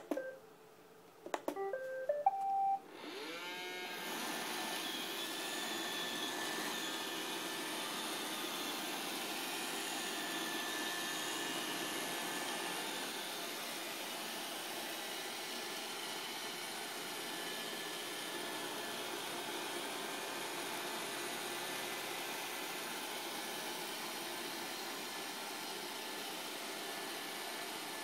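iRobot Roomba 535 robot vacuum being started: a click as its CLEAN button is pressed, a short beeped tune about a second and a half in, then its vacuum motor and brushes start up and run steadily as it cleans the carpet. It is running normally now that a faulty bumper sensor LED has been replaced.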